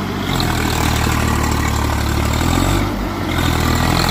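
Swaraj 744 FE tractor's three-cylinder diesel engine running steadily and loud while the tractor is bogged in deep mud. Its note dips briefly about three seconds in, then picks up again.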